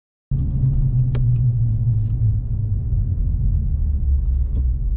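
Low, steady rumble of a car on the road, with a hum that drops a little in pitch about three and a half seconds in and a few faint ticks. It starts abruptly just after a moment of silence.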